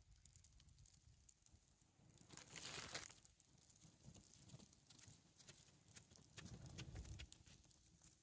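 Near silence with faint rustling and light ticks, and one louder rustle about two and a half seconds in.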